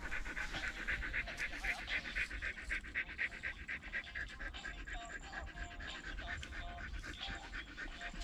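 Patyanwale hound panting fast and evenly, several breaths a second, close at first and growing fainter in the second half.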